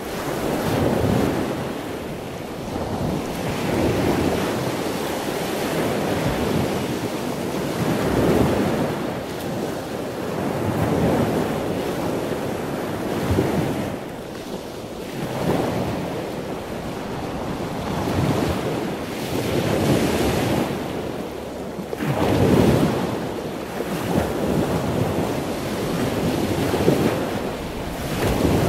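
Ocean surf: waves washing in and out, swelling and falling back every few seconds.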